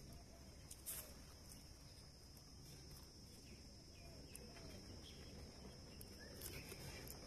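Near silence: faint outdoor ambience with a steady high whine and a few soft clicks.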